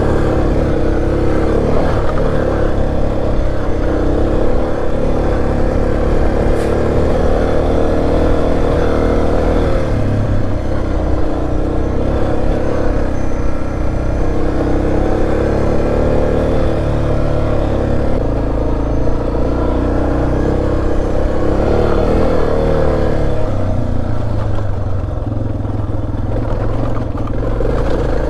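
Suzuki DR650's single-cylinder engine running under way on a dirt trail, the revs rising and falling as the throttle opens and closes.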